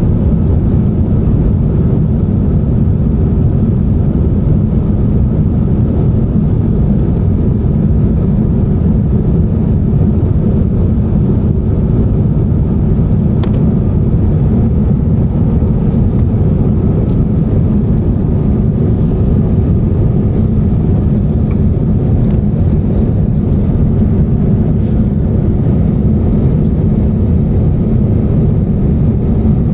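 Steady cabin roar of an Airbus A350-900 in flight: the low rumble of its Rolls-Royce Trent XWB engines and rushing air, heard from inside the cabin, with a couple of faint ticks midway.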